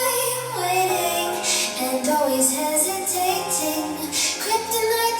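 A song with a woman singing the melody over held bass notes and backing instruments.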